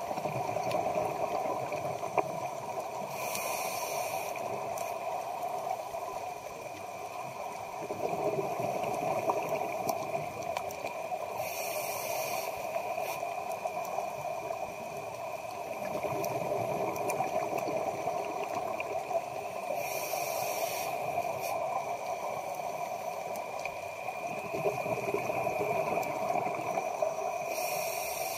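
Scuba diver's regulator breathing underwater: a brief hiss of inhaled air about every eight seconds and a longer rush of bubbling exhaled air between them, over a steady hum.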